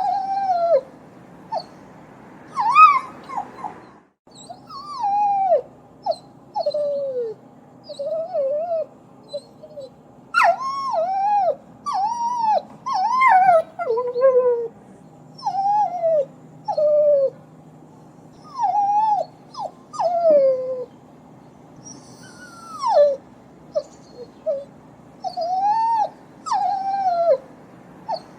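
A dog whimpering and crying: a long run of short, high-pitched whines, each rising and then falling in pitch, coming in quick clusters with brief pauses between them.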